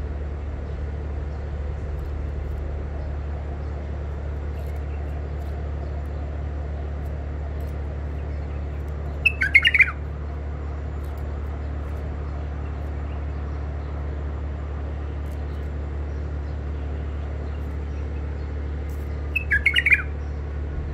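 Caged bulbul giving two short bursts of chattering call notes about ten seconds apart, over a steady low hum.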